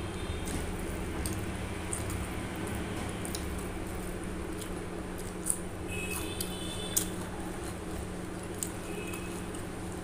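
Close-miked eating sounds of rice and chicken curry eaten by hand: wet, squishy chewing and mixing with scattered lip smacks and clicks, two sharper ones around the middle, over a steady low hum.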